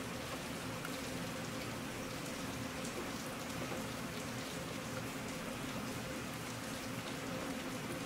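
Steady rain falling, a continuous hiss with fine ticks of individual drops, over a faint low steady hum.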